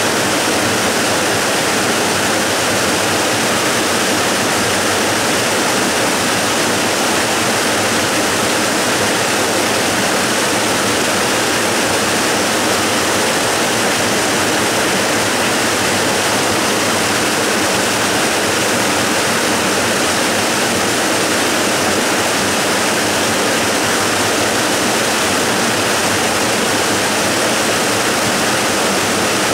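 A waterfall's steady, unbroken rush of falling water, full and loud with a strong hiss.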